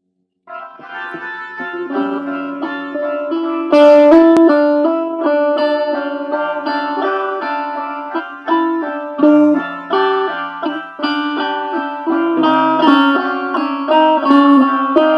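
Instrumental music: a plucked string instrument picks a run of single notes and chords, much louder from about four seconds in.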